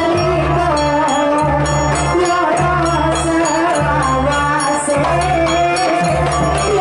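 Traditional Javanese ensemble music: a hand-played kendang drum slapping rapid strokes over large drums and frame drums, with a wavering lead melody above a steady low pulse.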